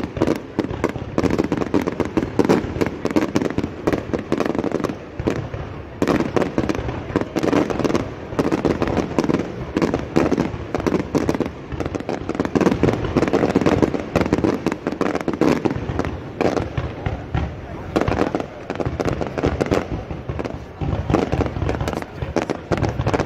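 A fireworks display going off: a dense run of cracks and bangs, one after another without a break, with people talking underneath.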